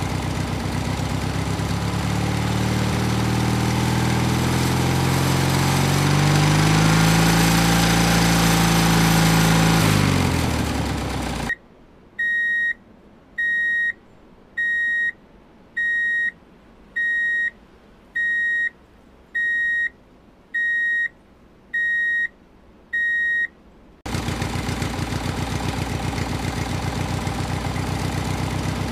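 Tractor engine running, climbing in pitch and then dropping away before cutting off abruptly. About ten even, high electronic beeps follow, roughly a second apart, and then the engine is heard running again near the end.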